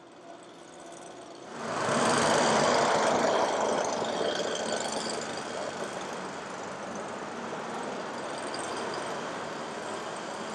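A train passing at the platform: its noise comes in suddenly about a second and a half in, loudest just after, then holds steady.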